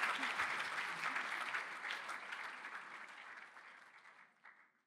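Audience applauding at the close of a talk. The clapping fades steadily and stops shortly before the end.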